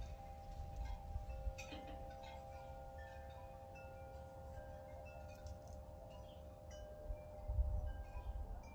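Wind chimes ringing at random: several held tones of different pitches overlapping, with higher notes struck now and then. Under them is a low rumble that swells about three quarters of the way through.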